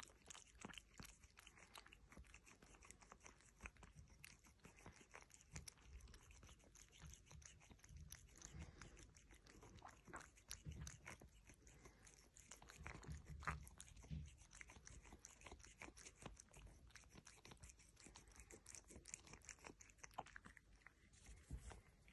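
Faint, quick clicking of a cat sucking and chewing milk from a feeding bottle's nipple.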